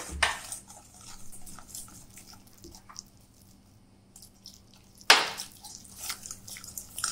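Wire whisk stirring flour batter in a steel bowl, with small scattered scrapes and taps against the metal, while water is poured in from a cup; a loud splash-like hit comes about five seconds in.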